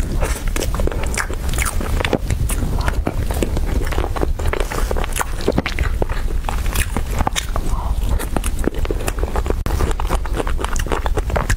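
Close-miked eating sounds of a person chewing a mouthful of strawberry and whipped-cream cake: wet chewing and lip smacking with many small, irregular clicks and crackles, over a steady low hum.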